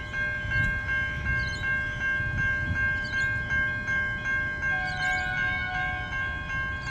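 Siemens Type 3 electronic level-crossing bells ringing steadily in a fast, even rhythm, signalling that the crossing is active for an approaching train, with a low rumble underneath.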